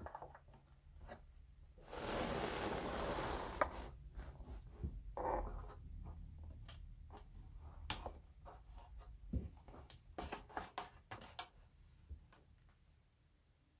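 Scraping and rubbing as a loudspeaker's cover is worked off by hand: one continuous scrape of about two seconds near the start, then scattered clicks, taps and shorter rubs that fade out toward the end.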